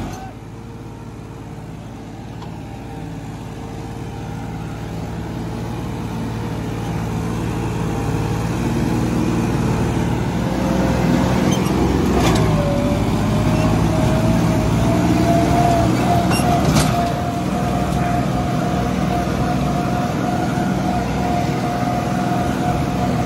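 Farm tractor engine running under way. Its sound dips and then builds up gradually over the first several seconds as the tractor gathers speed. A thin steady whine comes in about halfway, with a few sharp clicks.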